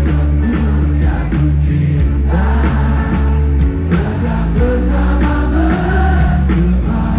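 Live rock band playing through a concert sound system, with heavy bass and drums under singing, heard from out in the crowd.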